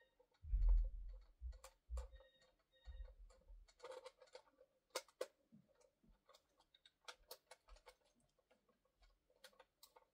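Scattered clicks and taps of hard plastic and batteries being handled while AA batteries are taken out of a toy, with dull bumps in the first few seconds. Two short faint beeps sound about two and three seconds in.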